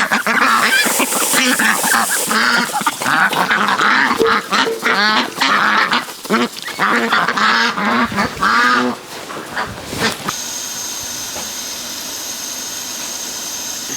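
A flock of ducks quacking noisily and without a break while being fed grain. About ten seconds in the quacking stops and a steady hiss takes over, from the pot of pear soup on the lit stove.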